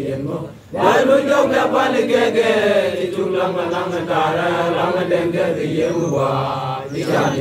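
A large group of voices chanting together in unison as a prayer, breaking off briefly about a second in, then holding one long phrase before dropping away near the end.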